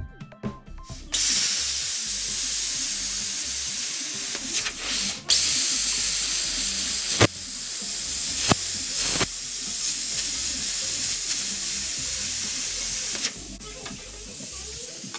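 Plasma cutter hissing steadily as it cuts steel plate along a clamped straight edge, with a short break about five seconds in. Near the end it drops to a quieter hiss, then stops.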